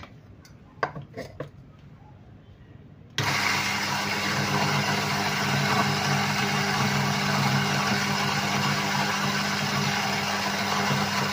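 A few light clicks as the grinder's hopper is handled, then about three seconds in an Orion home electric coffee grinder switches on and runs steadily, grinding coffee beans for an espresso dose. It is a noisy, even motor hum with a low drone.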